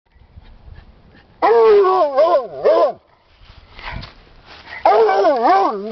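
Redbone-Bluetick hound baying at an animal down a hole: two long bawls with a wavering pitch, about a second and a half apart.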